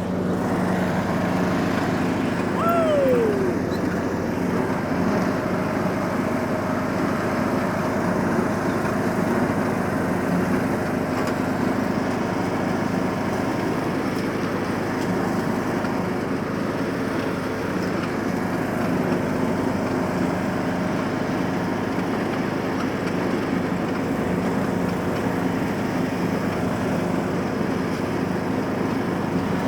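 John Deere riding lawn mower engine running steadily under way, with a constant low hum. A short falling tone cuts across it about three seconds in.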